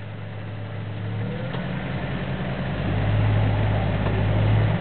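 Jeep Grand Cherokee ZJ's engine pulling under load as the SUV crawls up a rock ledge. Its steady low drone grows louder through the middle and eases off at the end.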